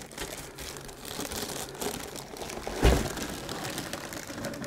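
Plastic wrapping crinkling and cardboard rustling as a boxed inverter-charger is pulled out of its carton, with a dull bump about three seconds in.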